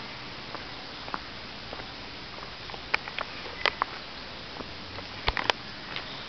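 Footsteps on a woodland dirt path, with scattered crackles and clicks of twigs and leaf litter underfoot, bunched about halfway and again near the end, over a steady hiss.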